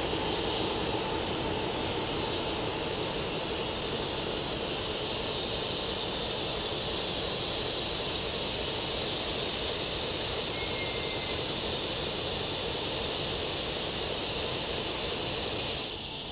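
ALCO FPA diesel locomotive's engine running steadily, a constant deep rumble with a hiss-like high band over it. The sound drops suddenly just before the end.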